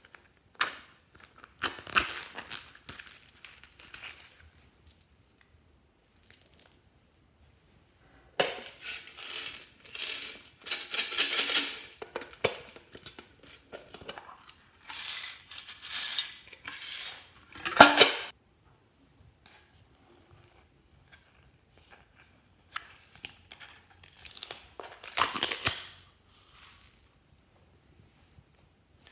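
Handling sounds as small objects are emptied from a zippered pouch and a pink container into a glass dish: crinkling and rustling, with small beads and rings rattling and spilling against the glass. The sound comes in three loud bursts of a few seconds each, with fainter fiddling before them.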